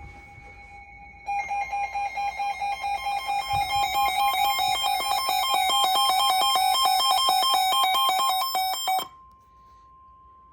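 Weather radio alert alarm beeping rapidly, alternating between two pitches about four times a second. It starts about a second in and cuts off abruptly about nine seconds in, leaving a faint steady tone. It signals an incoming severe thunderstorm warning.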